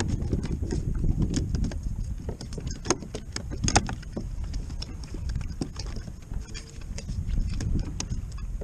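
Wind buffeting the microphone in a steady low rumble, with scattered small clicks and rattles of fishing gear on the kayak.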